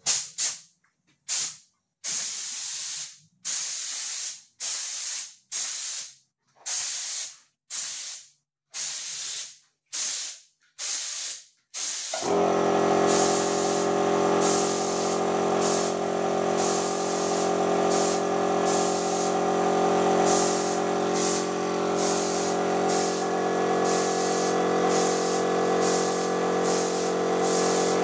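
Paint being sprayed in short bursts of hiss, about one a second, while the fireplace is painted. About twelve seconds in, a steady hum with several tones starts and the spray bursts continue over it.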